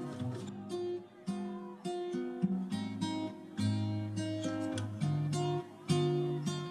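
Background music: a melody of plucked acoustic guitar notes.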